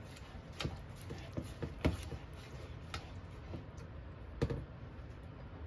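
A silicone spatula stirring thick sauce in a metal saucepan, with about half a dozen light knocks and clicks as it strikes the pot, over a low steady background hum.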